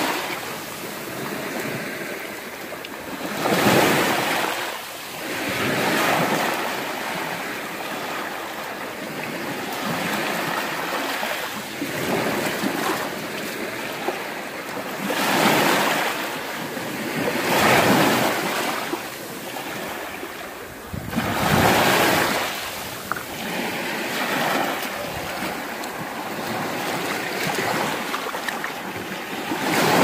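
Small sea waves breaking and washing up over a beach of crushed shells, in surges every few seconds, some louder than others.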